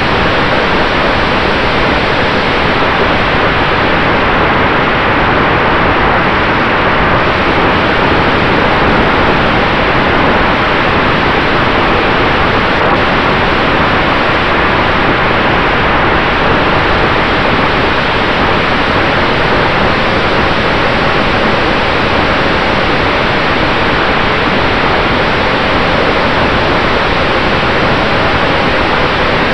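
Airflow and propeller noise picked up by a camera riding on an E-Flite F4U Corsair RC plane in flight, powered by a Cobra C-2820 brushless electric motor: a loud, steady rushing hiss with a faint steady tone under it.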